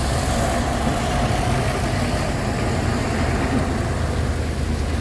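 Truck engine running steadily, a continuous low rumble under a haze of noise.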